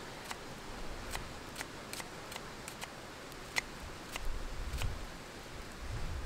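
Large knife slicing an onion on a birch log chopping block: about a dozen crisp, irregular clicks as the blade cuts through the onion and meets the wood. A low rumble comes in about four seconds in and again near the end.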